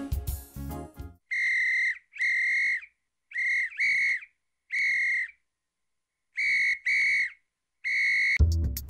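A whistle sounding eight short, steady blasts at an uneven rhythm, some in quick pairs, used as an alert sound effect. Background music stops about a second in and comes back near the end.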